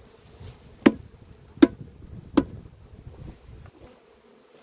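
Three sharp wooden knocks, evenly spaced about three-quarters of a second apart: a wooden beehive frame being rapped against the hive box to shake the honeybees off it.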